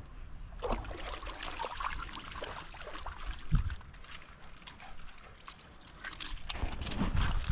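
Irregular splashing and crunching of gravel underfoot while wading a shallow, rocky creek, with a low thump about halfway through.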